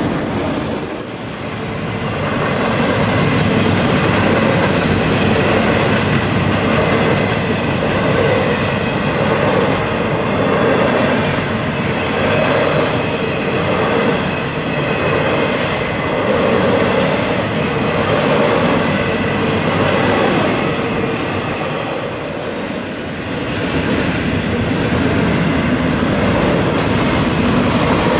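Freight train cars rolling past, steel wheels on rail, with steady tones from the wheels over the rolling noise. The loudness dips briefly twice, about a second in and again near the end.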